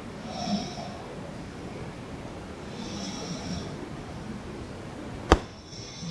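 Snoring, three snores at an even pace about two and a half seconds apart. A single sharp click a little after five seconds in is the loudest sound.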